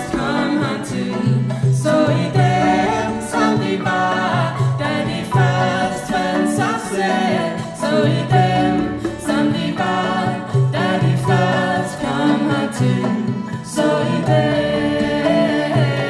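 Live acoustic band playing: several voices singing together over cello, marimba and hand drums, with regular drum strokes.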